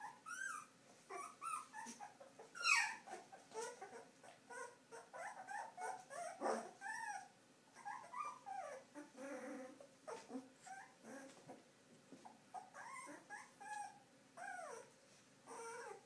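Two-and-a-half-week-old Afghan Hound puppies whimpering: a continual stream of short, high calls that rise and fall in pitch.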